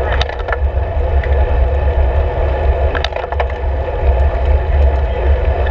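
Wind buffeting a handlebar-mounted camera's microphone on a moving road bike, a loud steady rumble, with short clusters of sharp clicks and rattles about a quarter of a second in and again about three seconds in.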